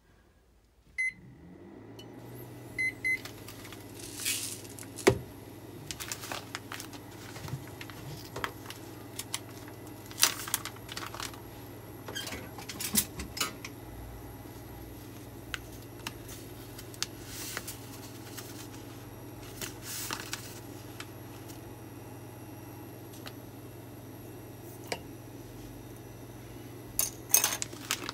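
Induction cooktop beeping a few times as it is switched on to medium-high, then running with a steady low electrical hum. Over it, a plastic bag of salt crinkles and clicks as it is handled, louder near the end.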